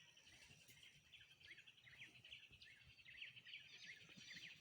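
Faint chirping of small birds: many short, quick calls repeating.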